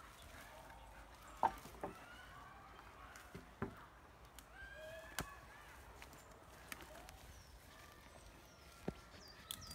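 Twigs and a dry branch cracking and snapping as two dogs tug and chew at it among fallen sticks: scattered single sharp snaps, the loudest about a second and a half in.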